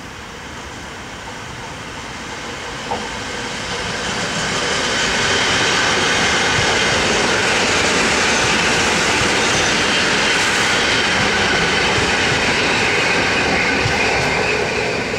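EN57 electric multiple unit rolling past on the near track, with wheel and running noise on the rails. The sound builds as the train approaches, stays loud for about nine seconds while the cars go by, and eases off near the end.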